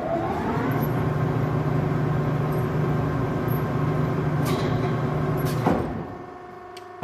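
Škoda SRM 100/4000 heavy centre lathe's drive switched on with a click, spinning up with a rising whine, then running steadily with a mechanical hum for about five seconds. Near the end it is switched off with another click and runs down.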